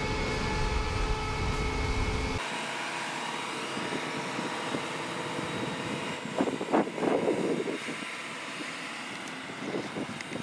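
Potato harvester running with a heavy low rumble and steady machine tones. About two seconds in it cuts to a quieter field machine and conveyor running, with a few thumps near the middle and again near the end.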